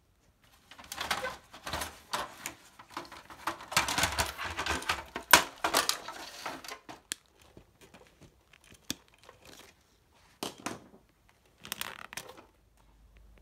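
Rustling, clicking and clattering of plastic parts and wiring being handled inside a partly dismantled CRT television, densest in the first half, with two short bursts near the end.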